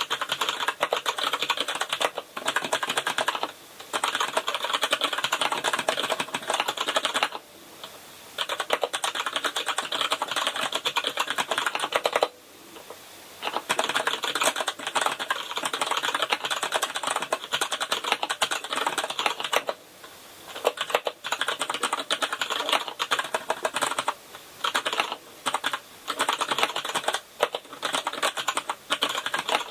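Fast, continuous typing on a KINESIS Advantage ergonomic keyboard with brown (tactile) mechanical key switches, in bursts of several seconds with short pauses between them.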